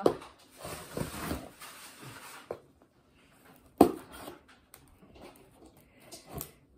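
Scissors scraping along and slitting the packing tape on a cardboard box, with the cardboard rustling. There is a sharp click about four seconds in, then a few softer knocks.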